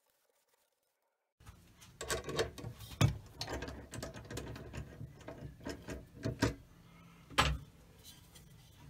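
Clicks and knocks of the wood lathe's headstock mechanism being worked by hand and the wooden bowl being handled as it is released from the lathe. The sounds start about a second and a half in, with a louder knock about three seconds in and another near the end.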